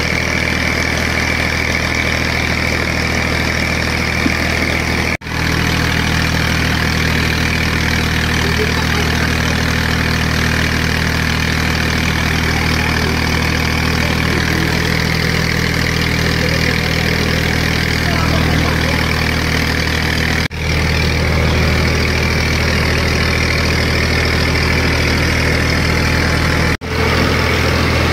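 Tractor-driven rice sheller machine running steadily as paddy is milled: a steady engine hum under a hiss of grain streaming through the machine. The sound drops out briefly three times, at about 5, 20 and 27 seconds in.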